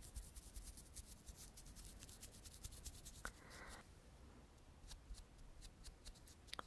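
Makeup brush bristles worked close to the microphone: faint crackling strokes of tiny clicks, dense for the first couple of seconds and then thinning out, with a brief soft swish about halfway through.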